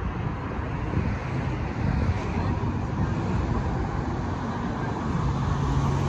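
Road traffic on the street: a steady rush of car engine and tyre noise, growing a little louder near the end.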